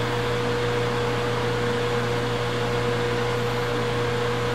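Vertical milling machine running with no cut being taken: a steady hum with a constant whine over it.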